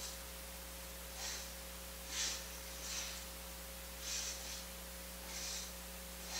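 Steady electrical hum over a constant hiss, with short airy puffs of hiss coming roughly once a second, seven in all.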